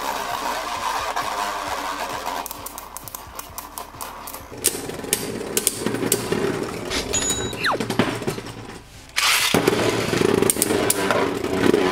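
Two Beyblade Burst tops, Brave Valkyrie (Sword 2S) and Glide Satan (Wheel Xtend+ 1S), spinning on a plastic stadium floor with a steady whirring grind and many sharp clicks as they clash. The sound gets suddenly louder about nine seconds in.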